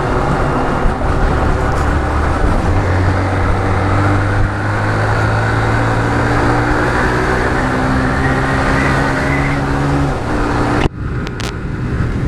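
Motorcycle engine running at riding speed with a loud road and wind rush, its pitch slowly rising as it speeds up; the rush drops away abruptly near the end.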